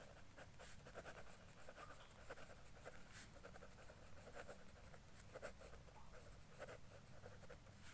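Pen scratching on paper in quick, faint strokes as words are written out by hand.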